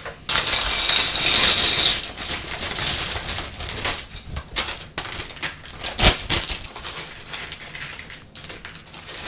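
Plastic bags of Lego pieces crinkling as they are tipped out, and loose Lego bricks clattering and skittering onto a hard tabletop in a stream of small clicks. A rush of bag rustling comes near the start, and a sharper knock about six seconds in.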